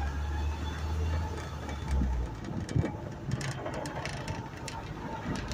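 A vehicle driving along a rough dirt track, its engine running with scattered knocks and rattles from the bumpy ride. A deep hum drops away about two seconds in.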